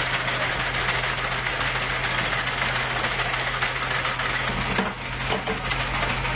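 Steady machinery running with a low hum and a dense rattle, with a brief dip and a few sharp clicks about five seconds in.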